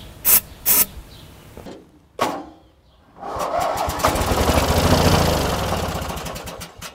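Two short hisses of starter fluid sprayed into the carburetor intake of an 18 hp Briggs & Stratton riding-mower engine, then the engine is cranked on ether for about three and a half seconds, a fast rhythmic churning that stops shortly before the end. It is a quick starting test for compression.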